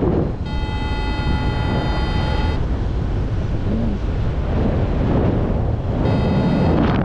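Wind rushing over the microphone of a paraglider in flight. A steady high tone sounds for about two seconds near the start and again briefly near the end.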